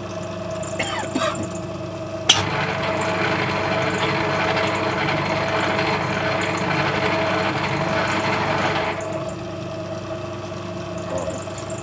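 Myford Super 7 lathe humming steadily. About two seconds in there is a sharp click, and the spindle, change gears and lead screw run with an even whirring for about seven seconds on a thread-cutting pass, then fall back to the hum alone.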